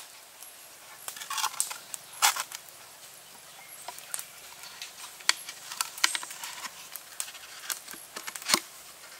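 Hollow green bamboo tubes knocking and scraping against each other as upright pieces are pushed into holes cut in a horizontal bamboo pipe. A scattered series of sharp clicks and knocks, loudest about two seconds in and again near the end.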